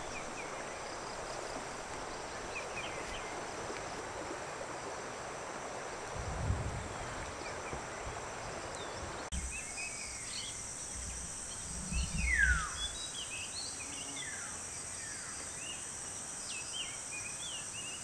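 Outdoor nature ambience: a steady rushing noise for the first half, then, about halfway through, birds chirping with many short falling calls and one longer falling whistle over a steady high-pitched insect drone. Two brief low rumbles come about a third of the way in and about two-thirds in.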